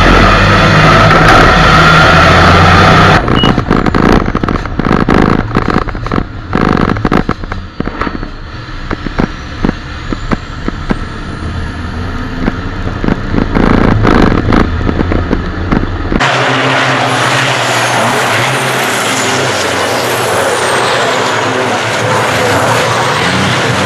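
Onboard sound from a racing truck close behind another race truck: turbo-diesel engine noise with steady tones, then a long stretch of sharp knocks and rattling over the engine. About 16 seconds in it cuts to race trucks running past on the circuit, heard as an even rush of engine noise.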